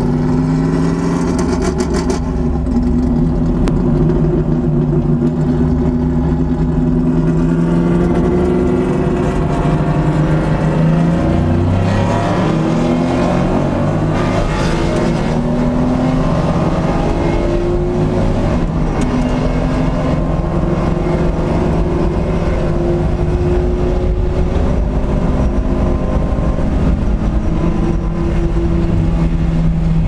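Porsche 911 SC's air-cooled flat-six engine heard from inside the cabin, run hard at racing speed, its pitch climbing through the revs and dropping back with each gear change.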